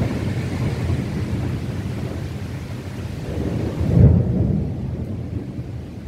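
Thunder rumbling through a heavy rainstorm, over a steady hiss of rain. The rumble swells to its loudest about four seconds in.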